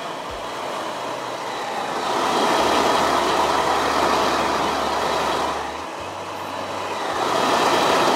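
Steady rushing noise that swells about two seconds in, eases off near six seconds and swells again near the end, with a low hum under the first swell.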